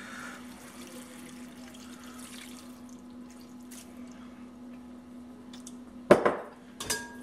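Sauce slurry of chicken stock and soy sauce poured from a glass jar into a hot stainless skillet of stir fry, with a faint liquid sizzle and dripping over a steady low hum. A sharp knock about six seconds in, with a smaller one just before the end.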